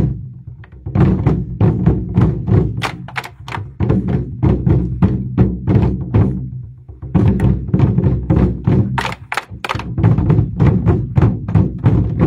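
24 Festive Drums ensemble playing: many large barrel drums struck together in fast rhythmic patterns, deep booming hits mixed with sharp clicking strokes. The playing drops back briefly just after the start and again around six to seven seconds in, then comes back at full force.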